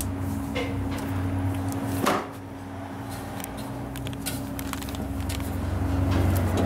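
Bread dough being pulled by hand from a steel mixer bowl and dropped into a plastic tub: soft handling knocks and clicks, with a sharper knock about two seconds in, over a steady low machine hum.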